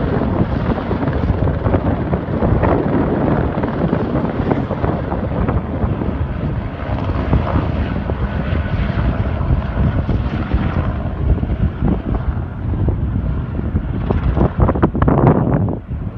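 Helicopter taking off: steady rotor and engine noise mixed with heavy wind buffeting on the microphone, with stronger gusts near the end.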